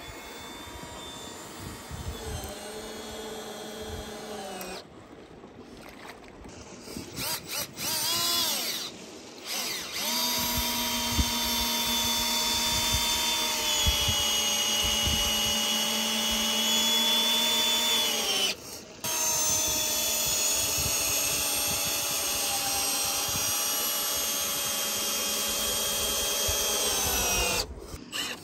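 Cordless drill boring a long bit into a log fence rail. After a fainter run early on it spins up and runs in two long stretches of about eight seconds each, with a brief stop between them, its pitch sagging slightly as the bit goes into the wood.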